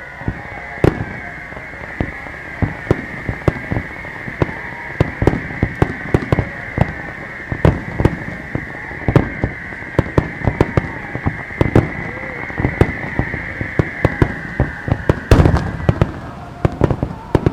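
Star mine fireworks barrage: a dense, rapid run of bangs and crackles from bursting shells, with a steady high whistle through most of it that stops about sixteen seconds in, and one heavy boom just before that.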